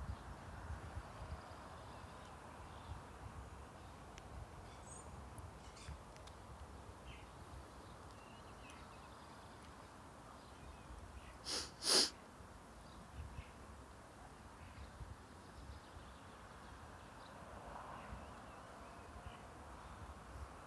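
Quiet outdoor ambience: a low, steady rumble with a few faint high chirps, broken about twelve seconds in by one short, sharp double burst of noise.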